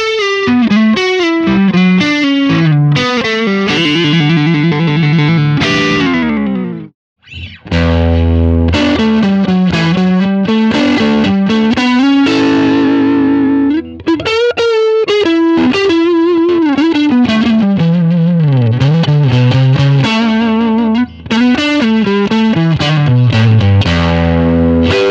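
Distorted electric guitar played through a digital amp modeler, with riffs, string bends and vibrato. The playing breaks off briefly a few times.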